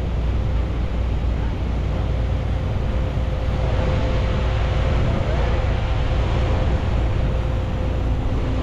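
A boat's engine running steadily under way: a constant low drone with a thin steady whine above it, over an even rush of wind and water.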